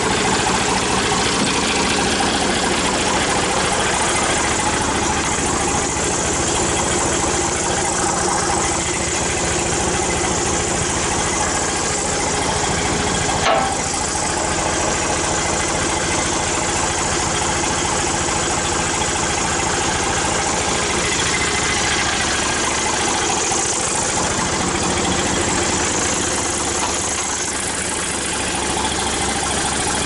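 An engine idling steadily, with one sharp knock about halfway through.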